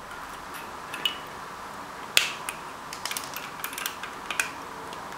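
Small side cutters snipping the protruding component leads on a circuit board: a scatter of short, sharp clicks, the loudest about two seconds in and a quick cluster a second later.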